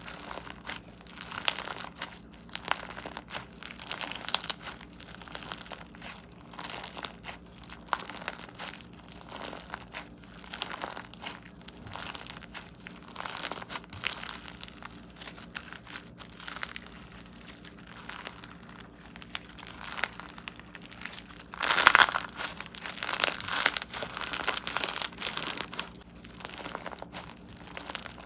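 Crunchy slime being squeezed and pressed by hand, giving a continuous run of fine crackles and crunches. The crackling grows loudest and densest about three-quarters of the way through.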